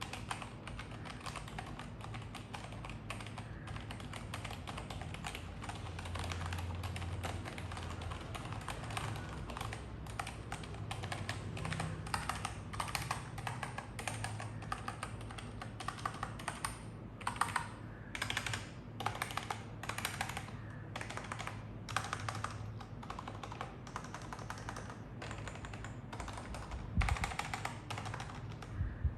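Logitech G213 Prodigy keyboard being typed on steadily, its Mech-Dome membrane keys giving a fast, continuous patter of soft key clicks. About two-thirds of the way through comes a run of louder, separate key strokes, and there is one more loud stroke near the end.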